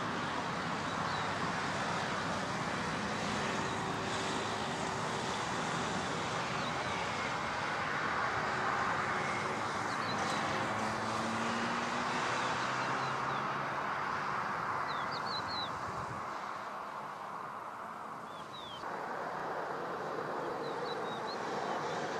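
Jet engines of a four-engine Airbus A340 airliner on final approach with its gear down: a steady rushing roar with a faint low hum that slides down in pitch partway through. The roar dips briefly and comes back up near the end.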